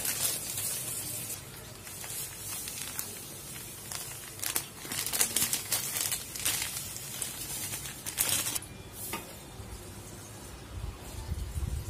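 Plastic food packet crinkling in several separate bursts as it is handled and tipped to pour out its contents.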